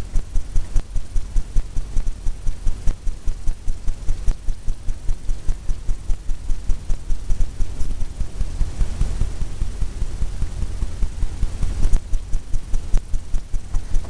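Fan brush tapping and scrubbing white paint onto a stretched canvas, the canvas drumming with soft, even thumps about three times a second.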